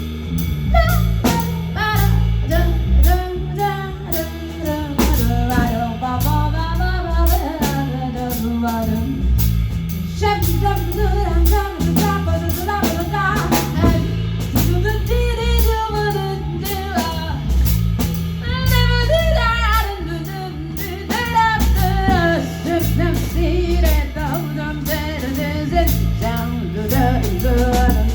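A live band playing a song: a lead singer's voice over a drum kit beat, with bass and guitar.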